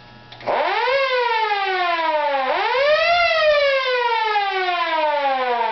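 Federal Model A electromechanical siren on a test cycle from its Federal PGA timer. It winds up about half a second in, coasts down, gets a second short burst of power about two and a half seconds in that lifts the pitch again, then winds down slowly.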